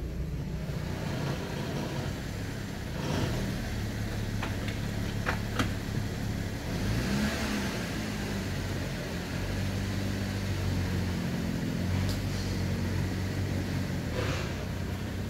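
Holden Commodore's 3.6-litre V6 petrol engine idling steadily, with a brief rev that rises and falls about seven seconds in. A few sharp clicks sound about five seconds in.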